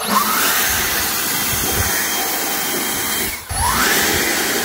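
Leaf blower switching on abruptly and blowing a steady jet of air into a transmission bellhousing, drying out the rinse water. About three and a half seconds in it eases off for a moment, then spins back up with a rising whine.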